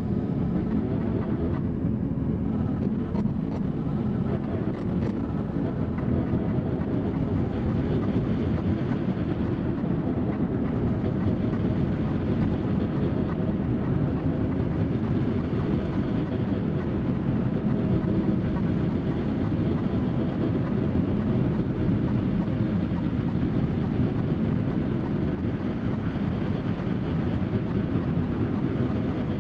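Harsh noise drone: a dense, steady rumbling wash of noise, heaviest in the low and low-middle range, made by corrupting ambient music tracks through a chain of effects pedals into a Boss RC-505 loop station.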